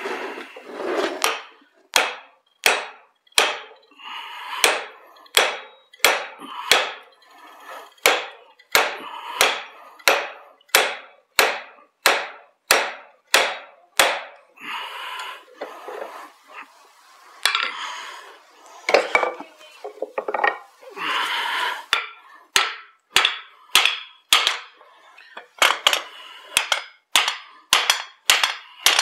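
Hand hammer striking hot steel while a broad axe is forged, a steady run of blows about one and a half to two a second with a short metallic ring after each, broken by a few short pauses.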